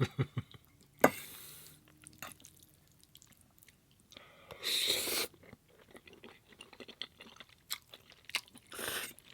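A person chewing and biting food close to the microphone, with scattered small mouth clicks and three louder crunchy bursts: one about a second in, one around the middle and one near the end.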